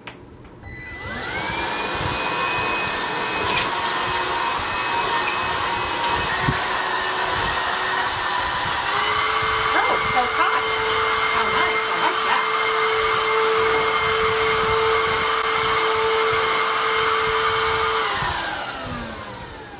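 HoLife 2-in-1 cordless stick vacuum switched on, its 22.2 V motor whining up to speed and running steadily on carpet. About nine seconds in, the whine steps up in pitch and gets louder: the higher of its two speed settings. It is switched off near the end and its whine winds down.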